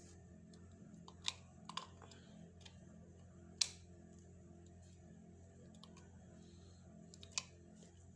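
Screwdriver clicking against a wall socket's screws and cover: a few separate light clicks, the loudest about three and a half seconds in, over a faint steady hum.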